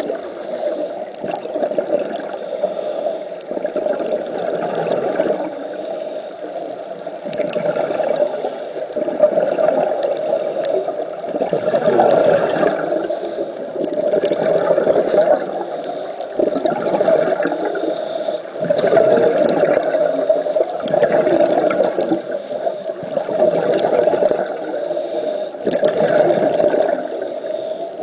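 Scuba diver breathing through a regulator underwater: a hiss on each inhale and a bubbling rush on each exhale, repeating about every four seconds.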